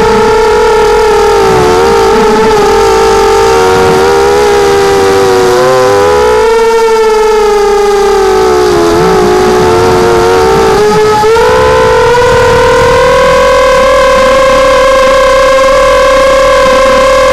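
Six brushless motors (Tiger MN1806 2300kV) of a hexacopter whining in flight, the pitch wavering with the throttle. It sags in the middle, steps up about eleven seconds in, then climbs slowly.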